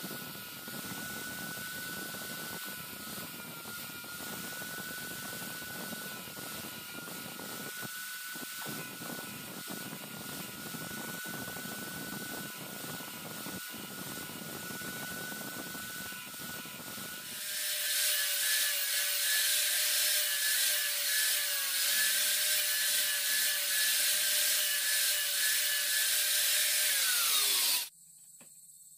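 Angle grinder running, its thin abrasive disc grinding the teeth of a circular table saw blade: a steady high whine over a grinding hiss, with light clicks as teeth meet the disc. About 17 s in it turns louder and higher, and near the end the whine falls away as the grinder winds down.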